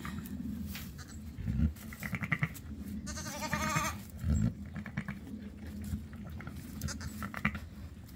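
A newborn lamb bleats once, a quavering call about three seconds in, with a shorter faint call just before it. Straw rustles throughout, and there are two low thumps.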